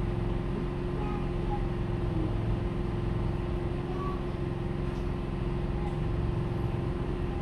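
Steady low mechanical drone of a running machine, with a constant hum tone.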